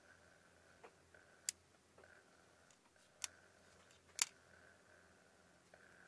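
Metal fork clinking against a plate while cutting and lifting a piece of chocolate cake: a few sharp separate clicks, the loudest about four seconds in.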